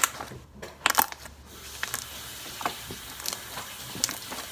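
Fluffy slime being squished and handled, giving a few sharp crackles and clicks, the loudest about a second in. From about a second and a half in, a steady hiss sits under scattered smaller clicks.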